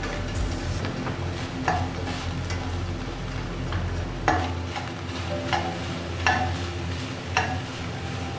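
Minced pork sizzling in a stainless steel pan while a slotted spatula stirs and turns it. The spatula scrapes and clacks against the pan about five times, loudest about four seconds in, over a steady frying sizzle.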